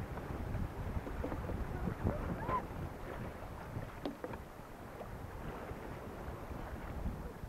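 Water rushing and splashing along the hull of a sailing canoe under way in choppy sea, with short slaps of water against the hull now and then. Wind buffets the microphone.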